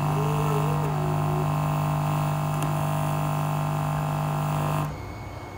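Steady mains hum from the speakers of an old Sony TV's audio amplifier board. The hum is picked up while the soldering iron touches the board, and it cuts off suddenly near the end.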